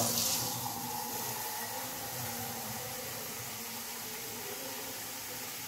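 Kitchen tap running a steady stream of water into a steel bowl of lentils, filling it to soak them: an even hiss.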